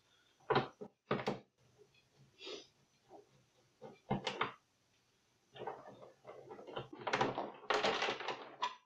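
Knocks, clicks and scraping from a screwdriver working the screws out of a flat-screen TV's plastic back case, with a longer stretch of busy rattling and scraping near the end.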